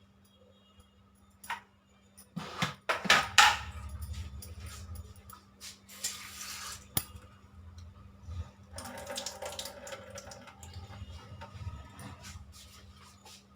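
Kitchen dishes and utensils clattering, with scraping and knocking against a bowl as chopped onion, green chilli and coriander leaves are tipped into mashed banana. The loudest knocks and scrapes come in a cluster a few seconds in, followed by softer rustling and scraping.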